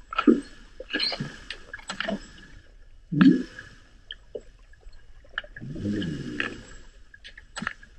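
Underwater hydrophone-style recording of humpback whale sounds: a short low grunt about three seconds in and a longer low moan with wavering pitch around six seconds, amid scattered sharp clicks and knocks.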